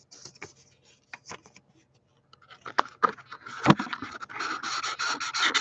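Close handling noise: a few soft clicks and scratches, then from about halfway a dense, scratchy rubbing that gets loud, as hands or paper rub right against the recording device.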